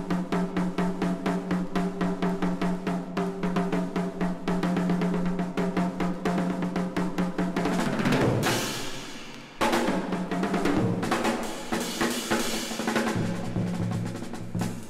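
Jazz band music led by a busy drum kit playing snare rolls and bass-drum hits over a bass holding one repeated low note. About eight seconds in, a cymbal crash swells, the sound briefly drops, then the band comes back in with the bass moving lower.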